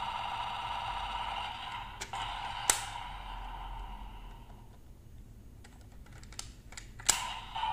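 DX Magnum Shooter 40X toy blaster playing its electronic sound effect: a steady electronic tone, a sharp crack a little under three seconds in, then a fade. Near the end come several short plastic clicks from the toy's parts being handled, one of them loud.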